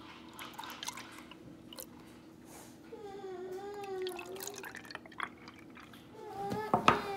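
Milk pouring from a plastic jug into plastic mugs, a trickling, splashing pour. A child's high voice wavers about three seconds in and comes again, louder and falling in pitch, with a few sharp knocks near the end.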